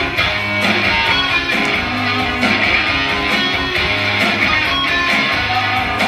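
Recorded song with strummed guitars over a steady beat and bass line, played loud through a club's sound system as a lip-sync track.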